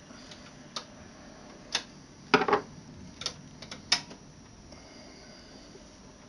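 Sharp clicks and knocks of hands handling computer case hardware, about six in the space of three seconds, the loudest and longest about two and a half seconds in, then only a faint steady hiss.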